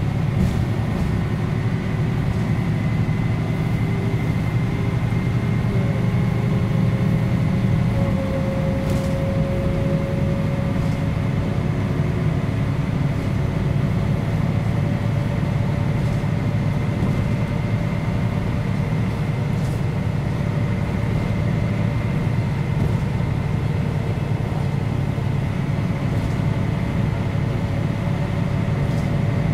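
Mercedes-Benz O 405 G articulated bus under way, heard on board: its diesel engine drones steadily with a faint whine above it. About eight seconds in, the low drone eases slightly and a mid-pitched tone grows stronger.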